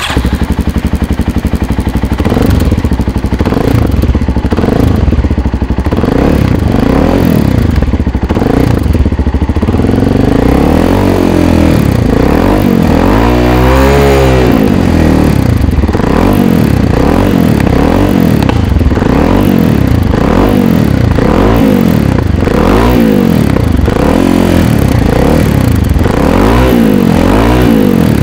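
Suzuki SB Tracker 250 motorcycle engine running through its modified aftermarket carbon-fibre-look silencer. It idles steadily for about ten seconds, then is blipped repeatedly, each rev rising and falling about every second and a half, with one bigger rev about halfway through.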